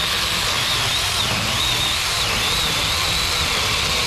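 Saker mini electric chainsaw cutting through a half-rotten log: a steady high motor-and-chain whine that dips briefly a few times as the chain loads up in the wood.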